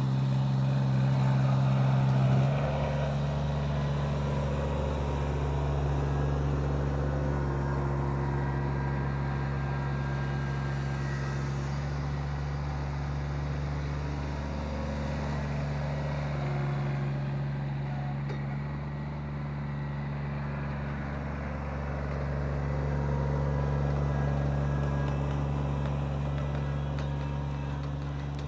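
Kubota BX2360 compact tractor's three-cylinder diesel running steadily under load as it pulls a rear rotary tiller. It is loudest as it passes close in the first couple of seconds, and the engine note shifts after that.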